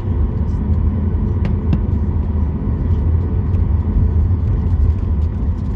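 Cabin noise of a Boeing 737 MAX 8 with its CFM LEAP-1B engines running: a steady low rumble with faint steady whine tones above it and a few light ticks.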